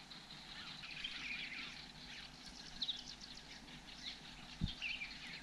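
Wild birds chirping and calling, a mix of short chirps and quick trills, fairly faint. A single dull low thump sounds near the end.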